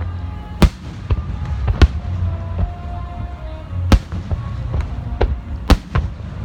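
Aerial fireworks shells bursting: four loud, sharp booms about a second or two apart and several smaller pops, over a steady low rumble.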